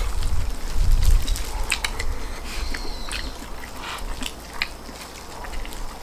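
Close-up eating sounds: duck meat being torn off the bone with plastic-gloved hands and chewed, with scattered small clicks and smacks.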